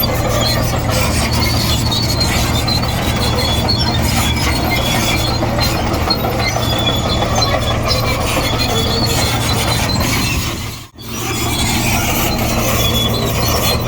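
Komatsu D58E crawler bulldozer running under load, its engine droning steadily while its steel tracks squeal and clank. The sound dips out briefly about eleven seconds in.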